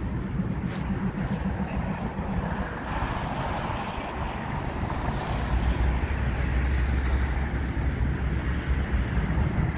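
Steady low rumble of a Union Pacific train rolling across a steel truss bridge, growing louder a little past halfway.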